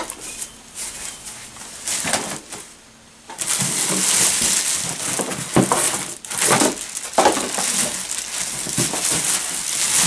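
Plastic packaging bags rustling and crinkling as they are handled: scattered crackles at first, then continuous rustling from about three seconds in.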